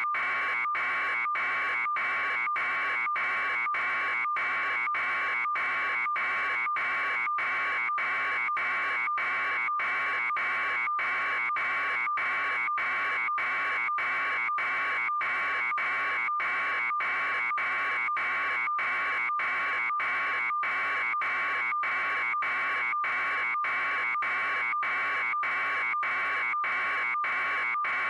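An electronic buzzing tone, pulsing evenly about twice a second and never changing.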